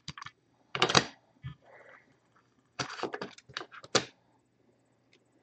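Sharp clicks and knocks of a hard plastic card holder and cards being handled and set down on a table: one louder knock about a second in, then a run of quick clicks a little before the end.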